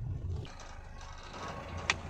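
Low road rumble inside a moving car for about the first half second, then it drops away to a quieter mixed background with faint steady tones and a single sharp click just before the end.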